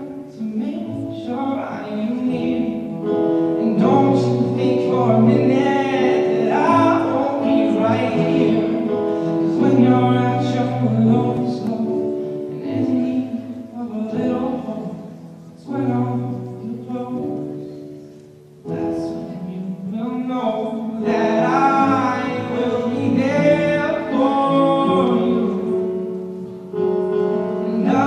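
A song performed live: a man singing held, sliding notes over instrumental accompaniment.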